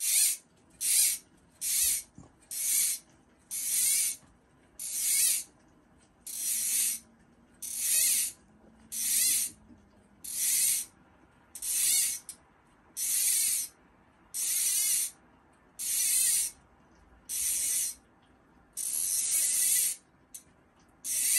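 Fishing reel clicking in short, regular bursts, about one a second, as line runs through it, with the bursts growing longer later on.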